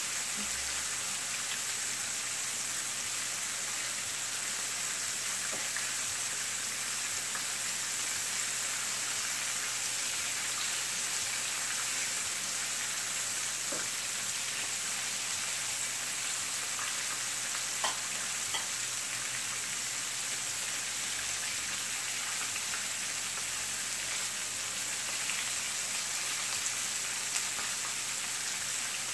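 Pieces of seasoned butterfish sizzling steadily in hot oil in a frying pan, with a few light clicks partway through.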